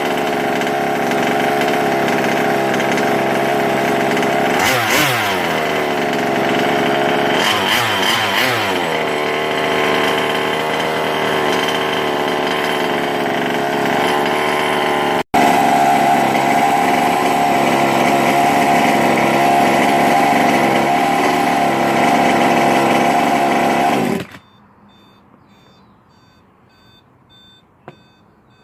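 Small two-stroke gas engine of a 1/5-scale RC car running hard, revved up and down a few times, then cutting off abruptly near the end. Faint short electronic beeps repeat after it stops.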